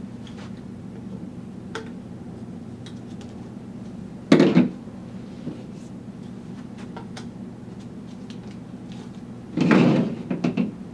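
Plastic pipe parts knocking on a tabletop as they are handled and fitted together: one loud knock about four seconds in and a quick cluster of knocks near the end, with a few faint ticks between.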